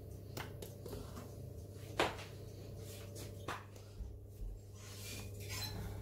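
Light handling sounds of a stainless steel stand-mixer bowl and its dough hook as bread dough is freed from the hook and worked by hand: a few short knocks and clinks, the loudest about two seconds in, over a steady low hum.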